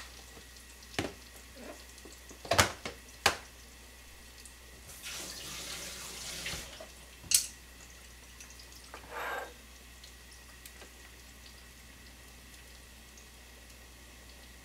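Plastic snap-lock food container being opened: a handful of sharp plastic clicks as the lid clips are unsnapped, a short hissy rustle as the lid comes off, one more click and a brief scrape, then quiet.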